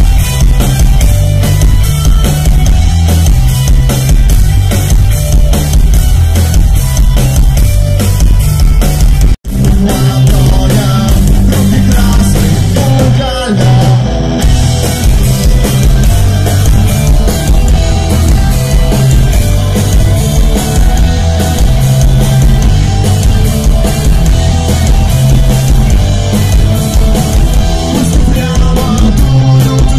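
Live rock band playing loud: drum kit, distorted electric guitars and a Klira electric bass guitar, with an even, driving beat. The sound cuts out for a split second about nine seconds in.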